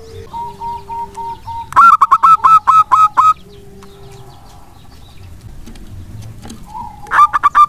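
Zebra dove (perkutut) singing its staccato song: a rapid run of about eight short, clipped notes about two seconds in, and another run starting near the end. Fainter, lower cooing notes come in between.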